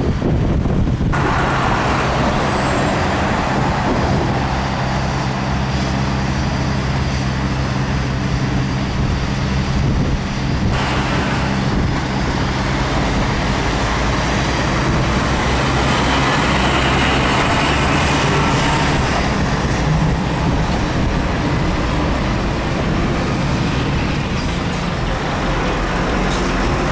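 Heavy trucks running with a steady low engine drone, mixed with the rushing noise of moving traffic.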